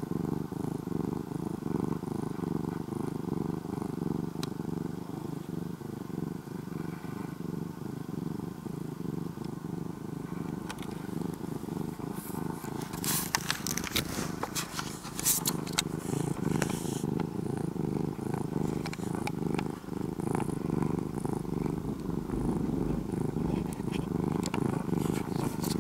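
Ginger-and-white cat purring steadily, close up. About halfway through there are a few seconds of rustling and clicks as it shifts against fabric.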